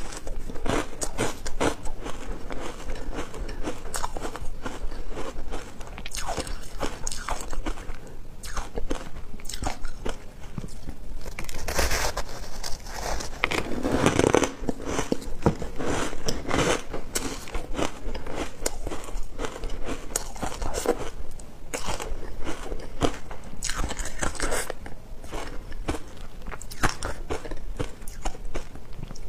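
Close-miked biting and chewing of a powder-coated block of ice: dense crunching and crackling all the way through, louder about halfway.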